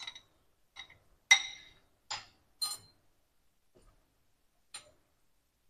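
A metal spoon clinking against a ridged glass bowl while stirring a cornflour-and-water slurry: about six light, separate clinks with a brief ring, the loudest a little over a second in.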